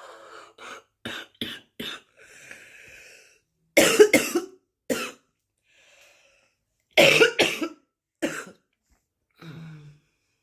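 A woman's smoker's cough in fits. A few small quick coughs come first, then a breathy pause, then two loud bouts of harsh coughing about three seconds apart, each followed by one more cough. A short throaty sound comes near the end.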